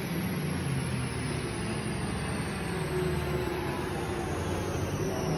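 Turbocharged Chevy Silverado's engine running steadily at low revs on a chassis dyno just after a pull, with a thin high whine slowly falling in pitch as it spins down.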